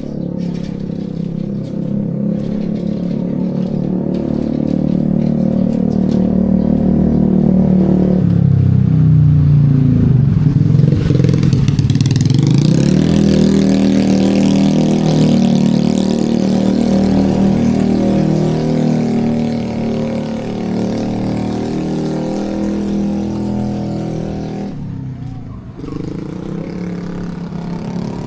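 A motor vehicle's engine running close by. Its pitch drops and then climbs again about ten seconds in, as if the vehicle slows and then speeds up, and it is loudest through the middle.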